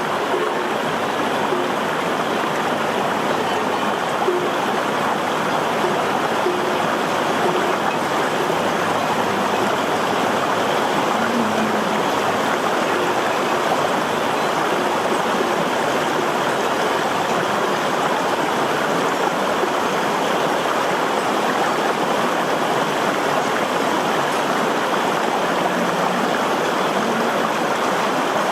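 Steady rushing noise like a flowing stream, unchanging throughout.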